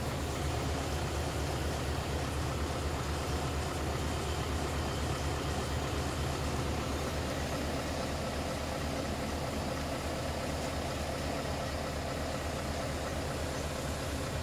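Scania S520's 16-litre V8 diesel idling steadily, heard from inside the cab.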